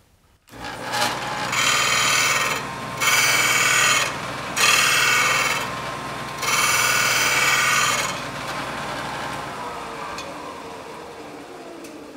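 Shopsmith's headstock motor starting and spinning a 12-inch sanding disc, with a lathe chisel pressed against the abrasive four times in short grinding passes to raise a burr on its edge. After the last pass the machine is switched off and coasts down, its hum falling in pitch and fading.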